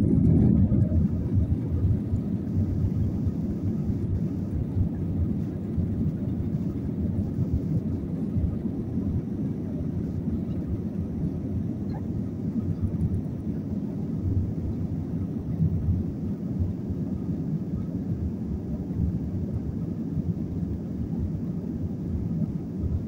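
Jet airliner's engines at takeoff power, heard inside the cabin during the takeoff roll. The deep, steady rumble swells to full loudness in about the first second and then holds, mixed with the rumble of the wheels on the runway.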